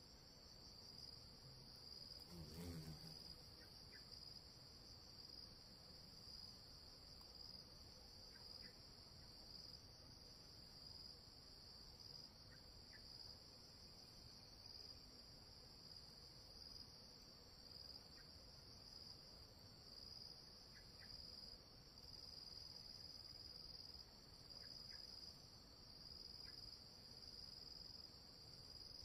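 Faint, steady insect chorus: a continuous high trill with a slight pulse. There is a brief low sound about two and a half seconds in.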